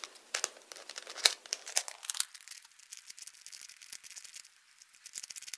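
Plastic dodecahedron-shaped twisty puzzle being turned by hand: quick, irregular clicking and clacking of its pieces. The clicks are louder for the first two seconds, then fainter.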